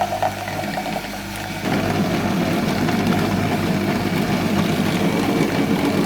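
Electric juicer's motor running with a steady hum; about two seconds in it grows louder and rougher as produce is ground through it.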